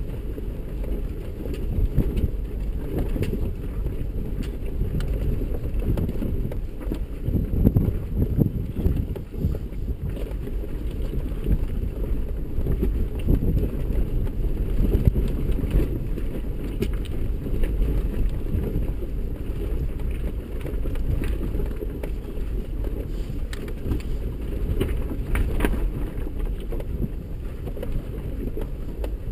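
Cabin noise of a 4x4 crawling over a rocky trail: a low, steady engine and drivetrain rumble with many small knocks and rattles as the tyres roll over loose rock.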